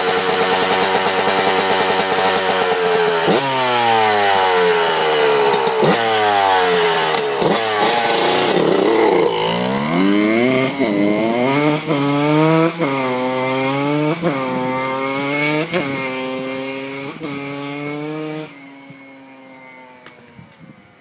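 Dirt bike engine revving hard as it comes up, its revs falling in steps, passing close by about nine seconds in, then pulling away with the pitch climbing and dropping back about once a second as it shifts up through the gears. It fades quickly and drops away a few seconds before the end.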